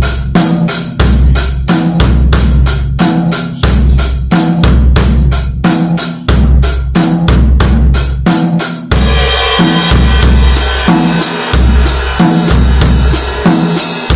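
Acoustic drum kit playing a steady eighth-note rock beat: hi-hat eighths over bass drum and snare, with an extra bass-drum stroke on the "and" of two. About nine seconds in, a ringing cymbal wash comes in under the strokes.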